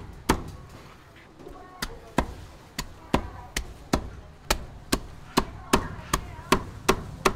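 Cleaver chopping roast poultry on a chopping block. Two quick strikes are followed by a pause of about a second and a half, then steady chops at about two to three a second.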